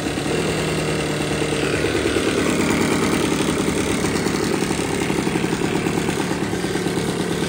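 Ryobi 38cc two-stroke backpack leaf blower engine running at idle, with a fast, even pulsing beat.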